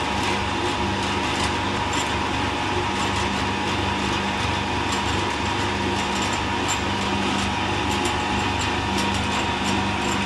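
Electric motor running steadily at about 1460 rpm, driving a large flywheel through a belt: an even mechanical whir with a constant hum.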